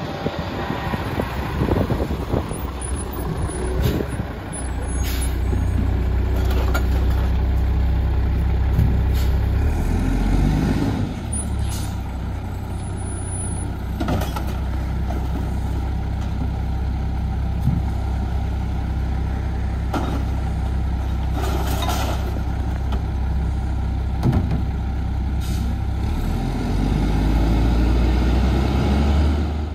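Mack MR garbage truck's diesel engine running with a steady low rumble, getting louder near the end. Air-brake hisses and several sharp clanks come over it as recycling bins are emptied by hand into the McNeilus rear loader's hopper.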